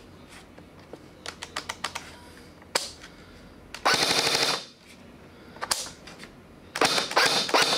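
A.P.S. UAR501B airsoft electric rifle (AEG) firing: a quick string of single semi-auto shots, then two short full-auto bursts, each under a second and about three seconds apart, the gearbox cycling rapidly.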